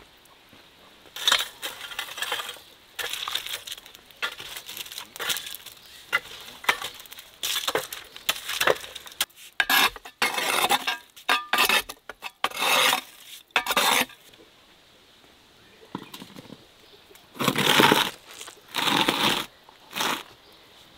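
Long-handled metal rake scraping over the clay floor of a wood-fired mud oven, dragging out the glowing embers to clear it for baking bread. It goes as a run of irregular scraping strokes, then a pause and three more near the end.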